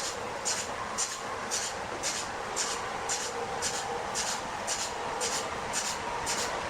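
Machinery running with a steady hum and a short hiss that repeats evenly about twice a second.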